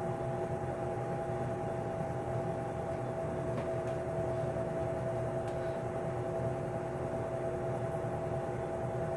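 Vintage Lakewood P-58 box fan motor turning a LAU 60263801 20-inch propeller, running steadily: an even rush of air over a low hum, with a few steady tones.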